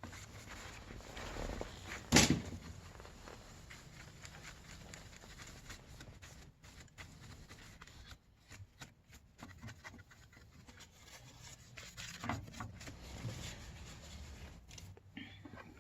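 Quiet handling noises of computer parts and case being worked on: light rubbing and scraping, with one sharp knock about two seconds in and a few softer knocks later.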